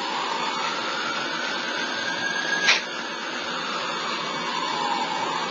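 Fire engine siren wailing in the distance, its pitch rising slowly for about two seconds, falling for about three, then starting to rise again, over a steady background hiss. A short sharp click about two and a half seconds in.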